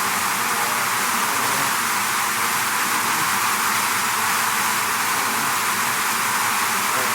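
A swarm of bees buzzing: a steady, unchanging hiss-like hum with no single bee standing out.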